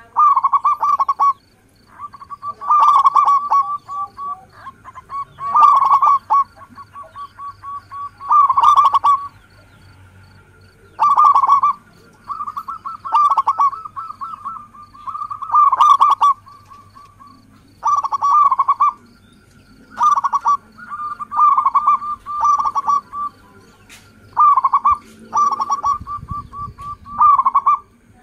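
Zebra dove (perkutut) cooing: quick runs of short staccato notes, each phrase carrying a louder accented coo, repeated every two to three seconds.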